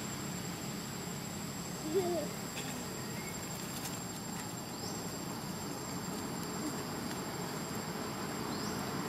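Steady high-pitched drone of insects, with a brief squeak about two seconds in.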